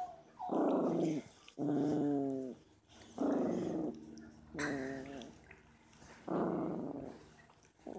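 A dog making its weird sound while being hugged: about five drawn-out vocal calls, each roughly a second long, with short pauses between them.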